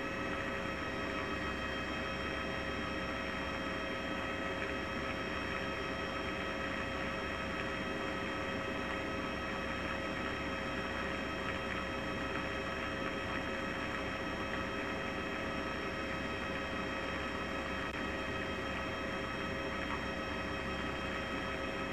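A steady hum with several steady high tones over a constant noise bed, unchanging throughout. No firework bangs are heard.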